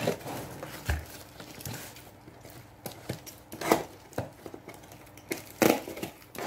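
Utility knife slitting plastic wrap on a cardboard box: the film rustles and crinkles, with several sharp taps and scrapes of the blade and hands against the box.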